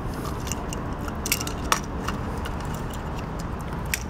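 Small sharp metallic clicks and scrapes of a screwdriver tip against the plastic start relay and the compressor's terminal pins as the relay is pried off the refrigerator compressor, thickest in the first two seconds, with one more click near the end.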